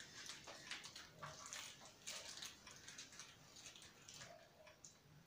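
Near silence, with faint clicks and rustles from the ring light's cable and plastic fitting being handled.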